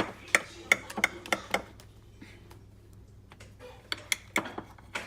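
A series of sharp light clicks or taps, about three a second for the first second and a half, then a few scattered ones later.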